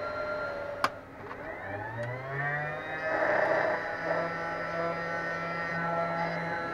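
Cooling fans of an Eltek Flatpack 1500 W power supply starting up: a click a little under a second in, then a rising whine as the fans spin up, settling into a steady multi-toned hum. These are the fans running unbalanced, before balancing.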